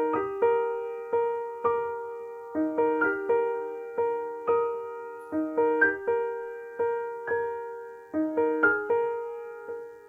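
Fazioli grand piano played slowly: separate notes in the middle register, each struck and left to ring and die away, in a figure that repeats about every three seconds.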